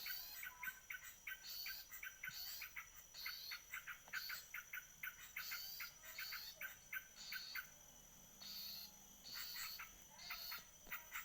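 Bird chirping in quick, evenly repeated bursts of short notes, pausing briefly about eight seconds in, over a steady thin high tone.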